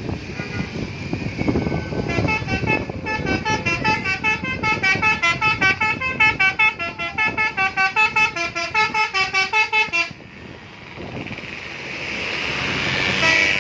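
A bus telolet horn, a multi-tone musical air horn, plays a quick melody of short notes at about three notes a second. The melody starts about two and a half seconds in and cuts off suddenly near ten seconds. A low rumble lies under the start.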